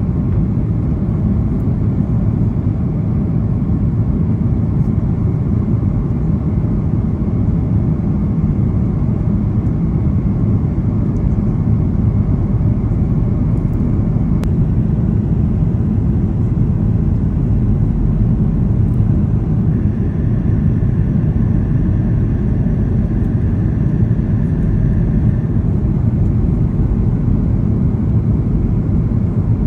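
Steady low rumble of jet airliner cabin noise in flight: engine and airflow noise heard from a window seat inside the cabin. A faint thin high tone sounds for a few seconds about two-thirds of the way through.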